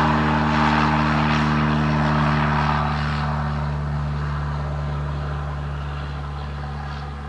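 Propeller airplane's piston engine running at a steady pitch, slowly fading out.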